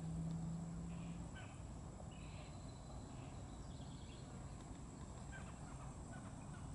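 Birds calling with short, scattered calls over a steady background hiss. A low steady hum is loudest in the first second or so, then drops to a fainter level.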